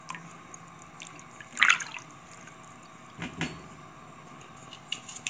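Water sloshing and dripping in a large pot as a plastic spatula stirs through it, with a brief louder splash about one and a half seconds in and another just after three seconds.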